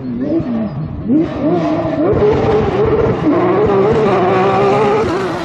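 Porsche 911 rally car's flat-six engine at high revs, getting louder about a second in. Its pitch climbs and wavers with the throttle, with a brief dip about three seconds in. Loose gravel and dust spray under the tyres.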